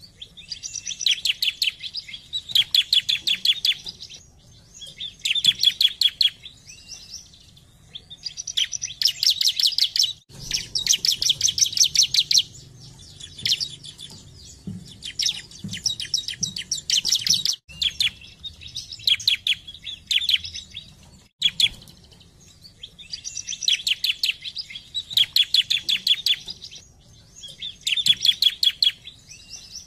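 Bar-winged prinia (ciblek) singing: phrases of one to two seconds made of very fast high notes, about a dozen a second, with short pauses between the phrases.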